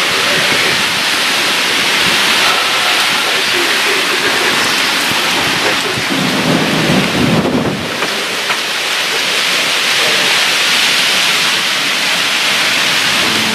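Heavy rain pouring steadily during a thunderstorm, with a low rumble of thunder swelling about six seconds in and fading by eight.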